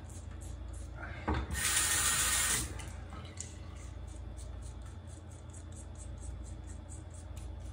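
Multi-blade razor scraping across sauce-covered stubble in short, quick strokes, about four a second. A brief hiss comes about a second and a half in, over a faint steady hum.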